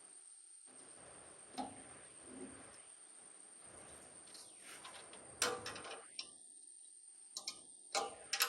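Scattered light clicks and knocks, with a louder one a little past halfway and several in quick succession near the end, over a faint steady high-pitched tone.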